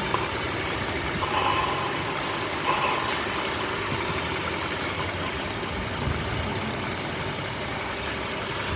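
BMW 530 engine idling steadily while it sucks in air through a leaking DISA valve, a vacuum leak that leaves it running extremely lean. Soapy water sprayed on the valve is being drawn in, and faint short whistles come about a second and three seconds in.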